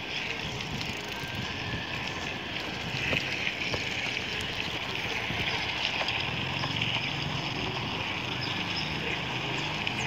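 Bicycle riding along a paved street: steady wind rushing on a handlebar-mounted microphone over tyre noise, with a few small clicks and a faint low hum in the second half.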